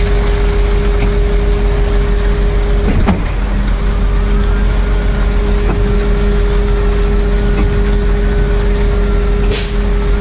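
Diesel engine of an old Mercedes-Benz concrete pump truck running steadily under load while it drives the pump, a constant hum with a brief dip about three seconds in and a short hiss near the end.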